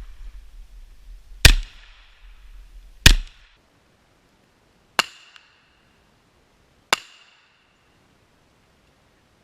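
Four single shots from a Kriss Vector .45 ACP carbine, spaced about one and a half to two seconds apart. The first two are the loudest, and the last two are fainter, each with a short ring after it.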